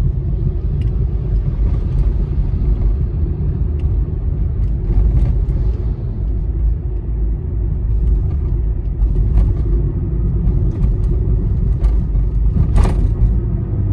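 Road and engine noise from inside a moving car's cabin: a steady low rumble while driving along the highway, with one brief sharp tick near the end.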